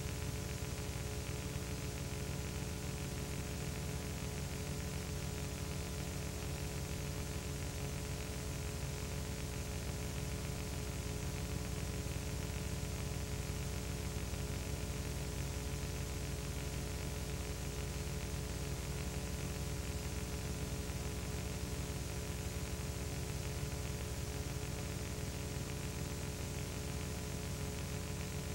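Steady electrical hum with hiss, unchanging throughout: the background noise of an old film transfer that carries no recorded sound of its own.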